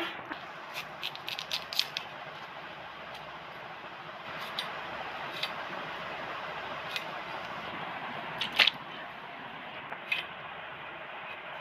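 Cauliflower florets being cut on a boti, the floor-mounted curved blade: a quick run of crisp snaps and cuts through the stalks in the first couple of seconds, then single ones every second or two, the loudest past the middle. A steady hiss runs underneath.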